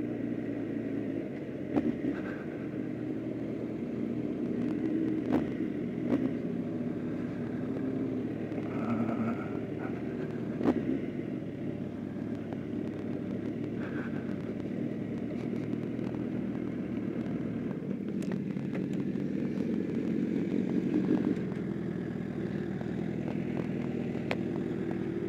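Motorcycle engine running steadily at low road speed, with a few brief knocks.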